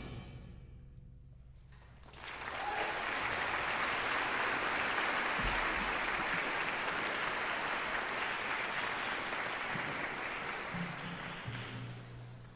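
The last chord of a concert band's march dying away in the hall's reverberation, then the audience applauding for about ten seconds, tapering off near the end.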